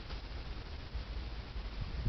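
Quiet outdoor background noise: a soft, steady hiss over a low rumble on the microphone.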